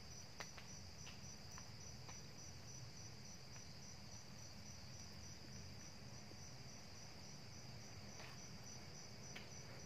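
Crickets chirping steadily in the background, a continuous high trill with an even pulse, over a low steady hum; a few faint soft ticks in the first couple of seconds.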